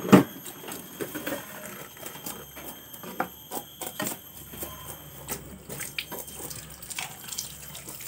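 A knife scraping and tapping on a snakehead fish on a wooden cutting board as the fish is scaled and cleaned, in short irregular strokes, with a sharp knock at the start. Near the end, water from a hose splashes over the fish.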